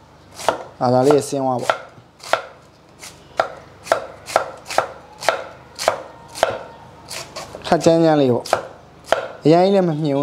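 Steel cleaver slicing cabbage into thin shreds on a round wooden chopping block: a steady run of sharp knocks, about two to three a second.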